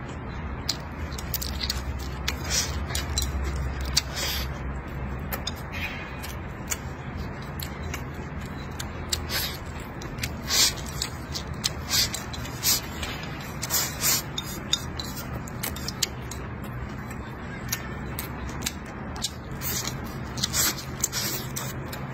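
Close-up eating sounds: chopsticks clicking and scraping against a plate as rice and pork belly are shovelled into the mouth, with chewing and smacking in many short sharp bursts over a steady low hum.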